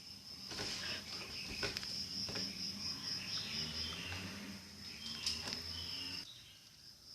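Crickets chirping with a steady, fast-pulsing high trill, with a few light clicks or knocks.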